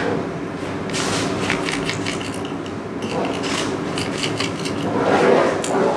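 Small plastic clicks and rubbing as fingers work a bracket loose from an opened DJI Mavic Pro remote controller's plastic housing, with clusters of clicks about a second in and again past the middle.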